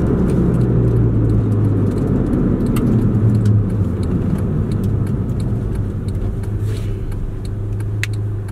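Inside the cabin of a moving 1997 Honda Civic: its four-cylinder engine running steadily over tyre and road noise, a little quieter in the second half, with scattered light clicks and jingles.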